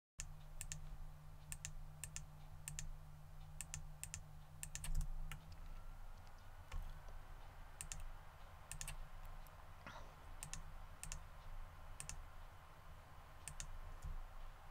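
Computer mouse clicks and key presses, irregular and often in quick pairs, over a low steady hum.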